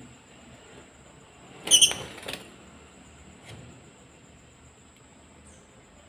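Lovebirds giving short, sharp, high-pitched chirps: a loud one about two seconds in, a weaker one just after, and a faint one later, over a steady thin high-pitched whine.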